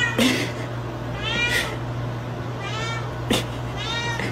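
Domestic cat meowing over and over, about four rising-and-falling meows roughly a second and a half apart. A sharp click comes a little after three seconds in.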